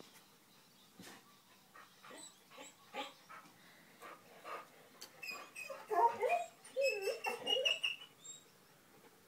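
Dogs 'talking': wavering, whine-like vocalisations that bend up and down in pitch, mostly in a run from about five to eight seconds in.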